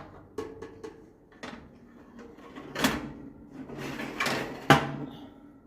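Metal toaster-oven trays being handled: a run of light clicks, then scraping and two sharp clanks, the louder one near the end.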